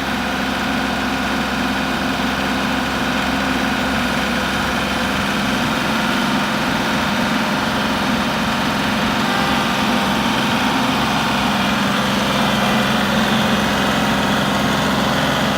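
A motor or engine running steadily at idle: an even, unbroken drone.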